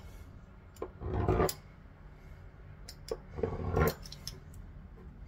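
A sheet of chebakia dough being cut into strips on a board: two short cutting strokes, about a second in and again past the middle, with a few light clicks.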